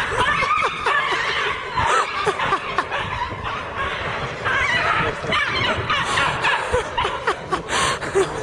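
People laughing and snickering, with bits of talk mixed in.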